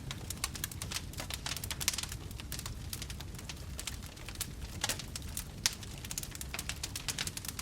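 Wood campfire crackling: many irregular sharp pops and crackles over a low rumble.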